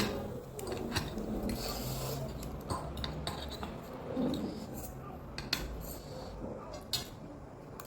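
Eating utensils clicking and scraping against a bowl of ramen, a few separate clinks a second or two apart.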